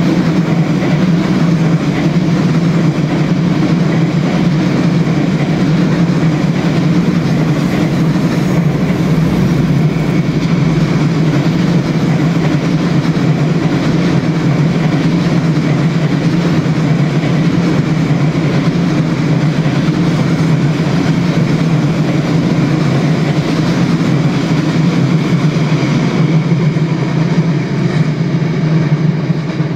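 Freight train of container wagons rolling past on the rails: a steady, loud noise of wheels on track that begins to fade right at the end as the last wagons go by.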